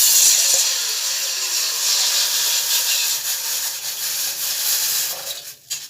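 Water poured into a small empty pot that has been heated first, hissing loudly as it hits the hot metal and flashes to steam. The hiss starts suddenly, slowly dies down, and stops near the end.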